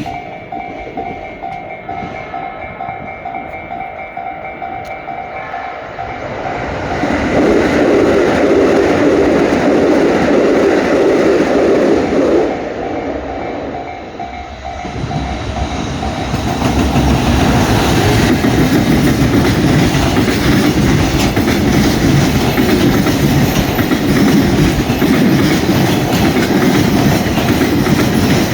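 Train running past close by on the tracks, a loud rumble of wheels on rail. The first few seconds are quieter, with a steady tone. The rumble swells about seven seconds in, eases briefly around the middle, then stays loud.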